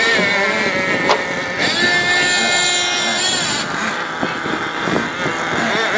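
Small nitro engines of radio-controlled monster trucks buzzing at a high pitch, more than one at once, rising and falling with the throttle. A single sharp knock about a second in.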